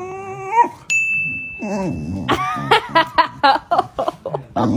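A dog whining: a long, drawn-out pitched whine, then a quick run of short yips and whimpers. A steady high-pitched tone sounds for about a second and a half between them.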